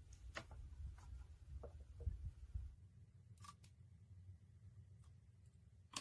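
Near silence: a faint low hum with a few soft, scattered clicks.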